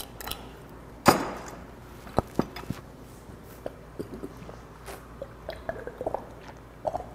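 Green glass soju bottle: its screw cap cracks open with one sharp snap about a second in, followed by a few light clicks. Then soju glugs out of the upturned bottle in a quick uneven string of small gulps and gurgles as it is drunk straight down.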